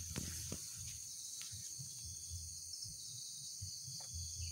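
Steady high-pitched insect chorus over a low rumble, with a few faint clicks.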